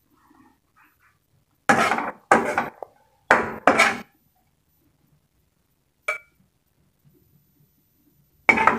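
A utensil scraping against a ceramic serving plate of sautéed cabbage four times in quick pairs, then a single sharp ringing clink of metal on the plate.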